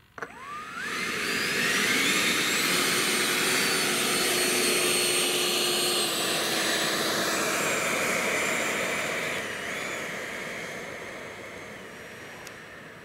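Freewing Yak-130's 90 mm electric ducted fan spooling up with a rising whine over the first couple of seconds, then running at a steady high whine as the model jet taxis. The pitch drops about six seconds in, and the sound fades over the last few seconds.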